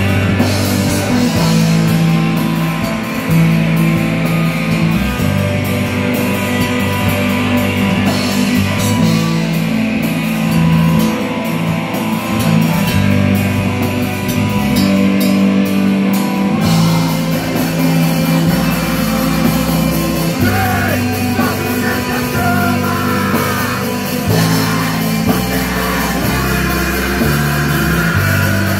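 Heavy metal band playing live, loud: electric guitars, bass guitar, keyboard and drum kit. A lead vocalist sings into a handheld microphone over the band, most plainly in the second half.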